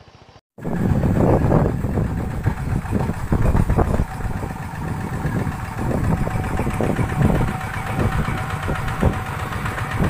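Two-wheel walking tractor's engine running steadily with a rapid knocking beat, cutting in after a short gap about half a second in.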